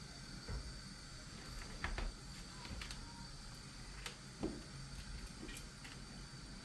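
A few faint, scattered knocks and clicks, two of them a little louder about two seconds and four and a half seconds in, over a quiet steady background.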